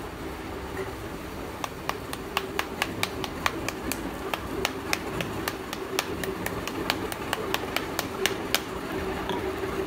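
Small metal hammer tapping a slab of roasted black multani mitti (fuller's earth clay), making sharp, light knocks about three or four a second to chip off its outer layers. The tapping starts about a second and a half in and stops shortly before the end, over a steady low hum.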